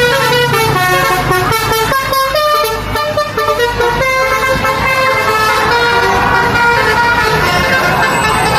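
Bus 'telolet basuri' multi-tone musical horn playing a tune: several horn notes sound together and jump from pitch to pitch in quick steps, over a low steady rumble.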